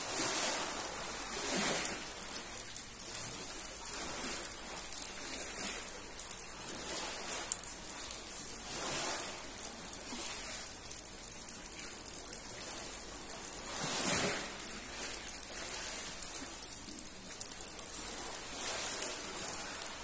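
Rain pattering steadily, with small sea waves washing up a pebble beach every few seconds; the loudest washes come near the start, around nine and fourteen seconds in, and near the end.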